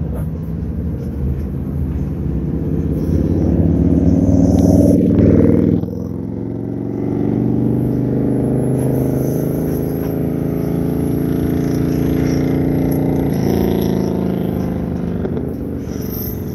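Covered hopper cars of a Canadian Pacific manifest freight train rolling past close by: a steady rumble of steel wheels on rail. It builds to its loudest about five seconds in, drops suddenly near six seconds, then comes back up and holds.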